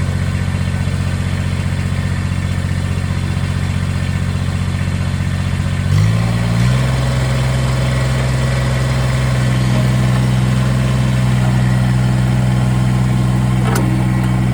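Tractor engine running steadily, revving up about six seconds in and then holding at the higher speed.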